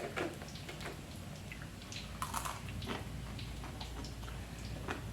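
Someone biting and chewing freshly fried crunchy anchovies (teri), heard as scattered short crunchy clicks.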